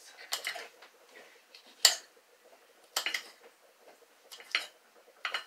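Kitchen knife clicking against a ceramic plate while chopping a hot pepper: about five sharp clicks, roughly a second apart, the loudest about two seconds in.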